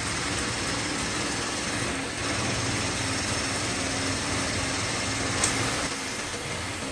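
Metal lathe running steadily with a constant machine hum and noise; a short sharp click about five and a half seconds in.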